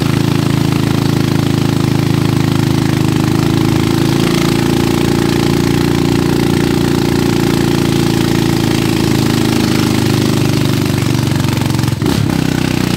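Small motorcycle engine running steadily with a rapid, rattling firing note while the bike is ridden carrying three people.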